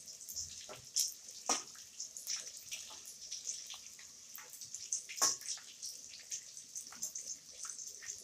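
Small pieces of edible gum (gond) frying in hot refined oil in a steel kadai on low heat: a light sizzle with scattered crackles as the gum puffs up, and a couple of louder pops.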